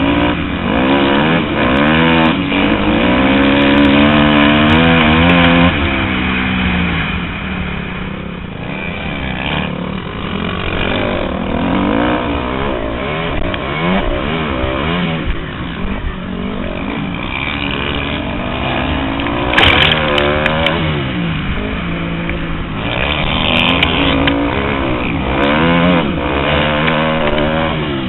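Motocross bike engine racing over a dirt track, its pitch climbing and dropping over and over as it is revved up and eased off, heard close up from a helmet-mounted camera. A sharp knock about two-thirds of the way through.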